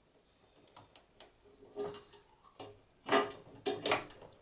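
Scattered light clicks and taps of hands working wires into plastic terminal connectors in a sheet-metal control enclosure. The loudest few come close together near the end.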